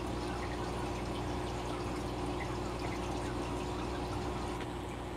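Aquarium water bubbling and trickling from an air-driven bubble curtain and sponge filter, with small scattered drips and pops over a steady low hum.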